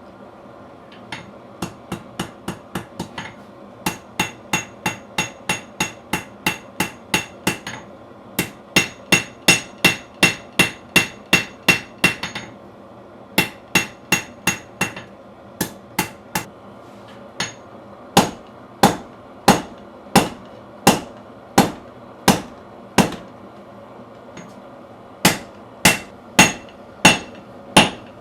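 Hand hammer striking hot steel on an anvil while forging a blade: runs of blows with a ringing tone after each strike, broken by short pauses. The early runs come quickly, about four blows a second; from about the middle the blows come slower and louder, under two a second.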